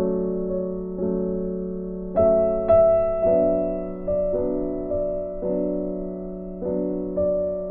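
Soft background piano music, with chords struck about once a second and left to fade.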